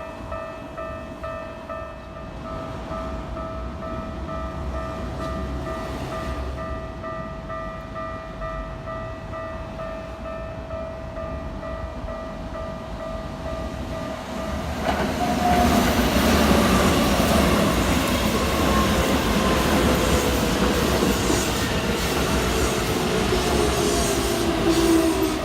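Japanese railway level-crossing alarm ringing with a steady repeating electronic tone. About fifteen seconds in, a Keikyu train runs through the crossing, much louder, with wheels on the rails and a whine that falls slowly in pitch.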